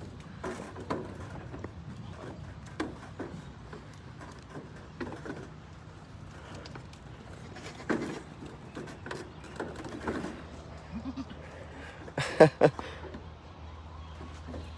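Goats bleating in a pen: a few scattered short calls, the loudest about twelve seconds in, with light handling clicks between them.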